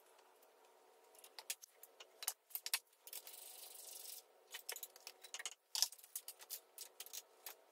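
Faint, scattered metallic clinks and rattles of a wrench and steel parts being handled inside a dozer's steering-brake housing, with a soft scraping hiss for about a second, some three seconds in.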